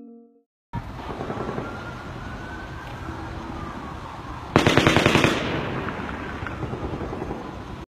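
Phone recording of a rapid burst of automatic gunfire, about a dozen shots in under a second, starting about halfway through and standing out loudly over street noise and a siren's wail.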